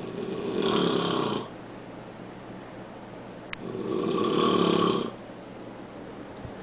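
A man snoring loudly in his sleep: two long snores about three and a half seconds apart, each lasting about a second and a half.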